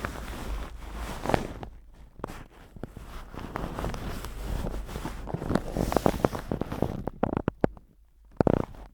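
Close-miked ASMR trigger sounds: rustling handling noise with irregular soft taps and clicks, a quick cluster of clicks late on and a dull thud near the end.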